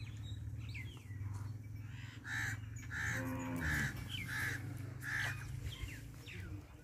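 A crow cawing five times, about 0.6 seconds apart, midway through, with small birds chirping throughout over a steady low hum.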